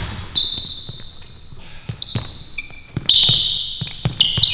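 Basketball bouncing on a court, with sneakers squeaking sharply, loudest from about three seconds in to the end.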